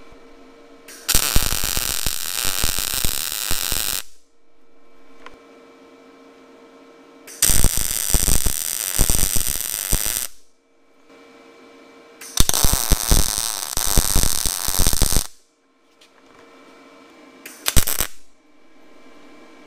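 MIG welder arc crackling and hissing as tack and short stitch welds are laid on a steel jig, in four bursts: three of about three seconds each and a short one near the end. A steady hum runs between the welds.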